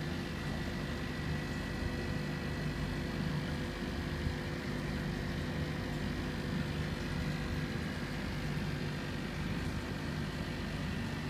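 Steady hum of aquarium pump and aeration equipment: a low rumble with a few constant tones over it, unchanging throughout.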